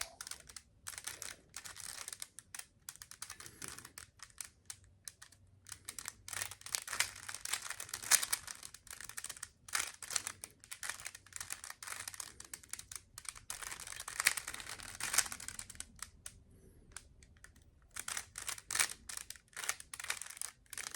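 Rubik's Cube being turned by hand while solving the white cross: quick runs of plastic clicking and clacking as the layers turn, with short pauses between bursts.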